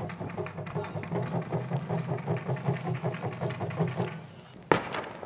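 Japanese wadaiko (taiko) drums beaten in a fast, steady rhythm that dies away about four seconds in, then a single sharp bang of a firework shell bursting just before the end.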